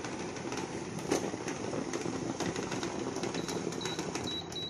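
An induction cooktop runs under a steaming idli pot, a steady whirring hum with scattered light clicks. In the last second or so it gives several short, high beeps as its power setting is turned down.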